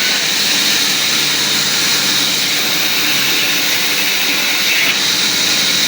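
Woodworking machine running steadily, a loud even hiss with a low hum underneath.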